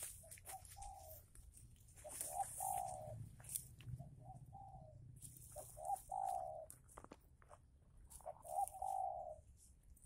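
Spotted dove (tekukur) cooing in repeated phrases, about one every two seconds, each made of a short note or two leading into a longer, lower coo.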